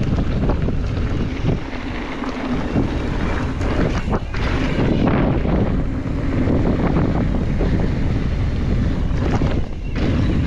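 Wind buffeting the camera microphone of a mountain bike being ridden down a trail, a steady low rumble with short rattling knocks from the bike going over rough ground.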